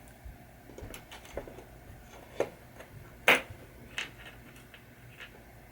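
Scattered light clicks and taps of small metal parts of a pinball saucer kicker assembly being handled and set down on a workbench, the loudest about three seconds in.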